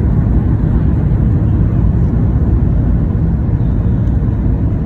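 Airliner cabin noise after landing: a loud, steady low rumble of the engines and the aircraft rolling on the ground, heard from inside the cabin.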